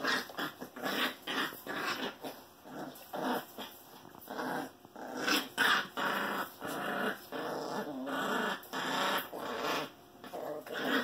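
Scottish terriers, an adult and a puppy, growling at each other in play: a long run of short, rough growls and grumbles, on and off, with an occasional whimper.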